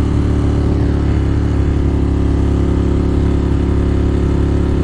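Ducati Monster 1200 R's L-twin engine running at a steady pace while the bike is ridden, its engine note holding an even pitch.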